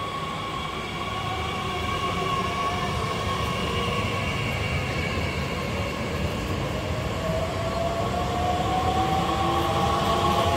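Red two-unit Bombardier Talent 2 electric multiple unit running along the station platform. The electric traction drives whine in several tones that drift slowly in pitch over a steady rumble of wheels on rail, growing louder as the train comes alongside.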